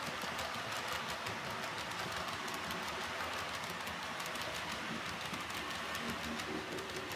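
H0-scale model train rolling along the layout track: a steady rolling hiss and rumble with many small clicks from the wheels running over the rails.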